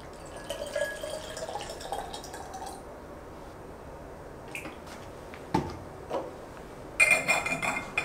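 Water poured from a paper carton into an insulated bottle, trickling for the first couple of seconds. Then two light knocks, and near the end a brief metallic clinking and scraping as the bottle's metal cap goes on.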